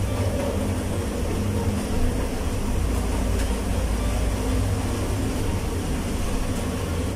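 A steady low rumble, with small clicks and handling sounds as cooking oil is poured from a plastic bottle into a frying pan.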